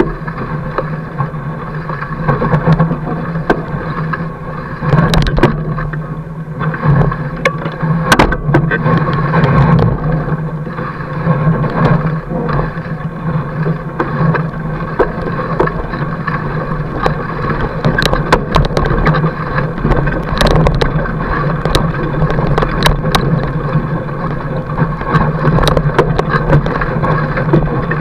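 Fat bike's wide front tyre rolling over snow, a steady drone broken by frequent sharp clicks and knocks as the bike jolts over the bumpy surface.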